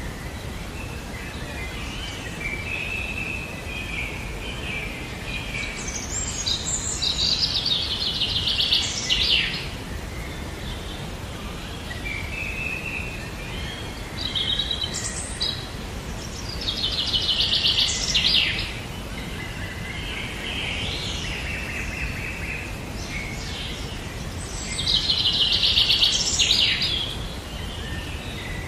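Birds singing: a rapid trilled phrase about two seconds long comes three times, roughly every nine seconds, with softer chirps between, over a steady background hiss.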